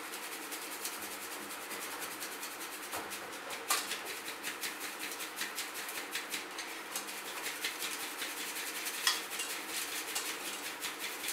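Ground spice powder being sifted through a plastic sieve shaken by hand over a stainless-steel pan. It makes a steady, fast, fine rattling hiss, with a couple of louder knocks, one about four seconds in and one near nine seconds.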